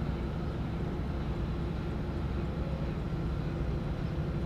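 Steady low drone of a destroyer's running machinery alongside the pier, with a few faint steady tones above the rumble.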